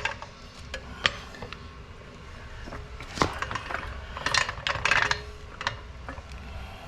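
Scattered metal clinks and knocks with brief scraping as a floor jack is handled and set in place under a car. The two sharpest knocks come about a second in and again about three seconds in.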